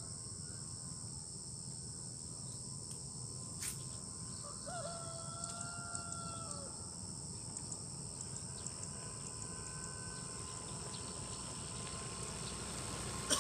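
Steady high-pitched insect chorus over a low background rumble. About five seconds in, a bird gives one drawn-out call lasting about two seconds, and a single sharp click sounds just before it.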